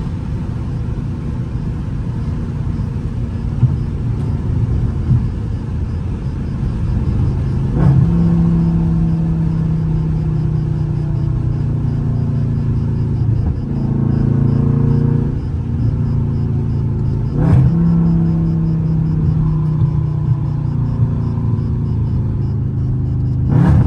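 Dodge Charger Scat Pack's 392 HEMI V8 running at highway speed, heard from inside the cabin with road rumble underneath. The engine note steps up in pitch several times with a brief sharp rise, and climbs gradually once as the car pulls.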